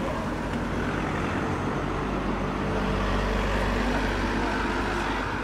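A motor vehicle's engine running at a steady pitch, growing louder to a peak a little past the middle and then fading, over street noise.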